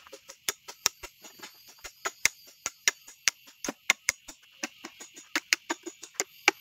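A blade knocking on bamboo in a quick, slightly uneven series of sharp strikes, about two to three a second, as bamboo is chopped and split into slats. A steady high hiss runs behind it.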